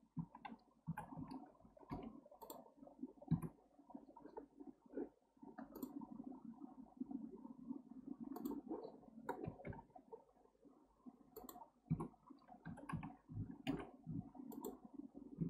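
Irregular clicks of a computer mouse and keyboard, a few to several per second, over a faint low background murmur.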